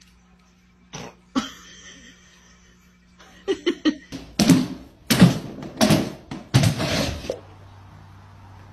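A woman laughing in a run of short, noisy bursts, starting a little past three seconds in and breaking off about a second before the end. Two soft knocks come about a second in.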